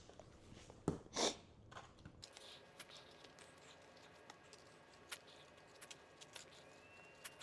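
Faint handling sounds of seasoning being shaken over raw chicken legs: a couple of clicks, a short rasping shake about a second in, then scattered light ticks.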